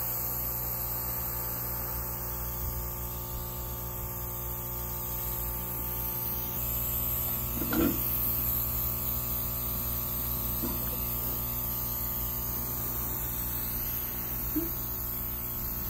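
Airbrush spraying dye onto a leather boot sole: a steady, high hiss of air over a constant low hum. A couple of brief knocks, one about halfway through and one near the end, come from handling.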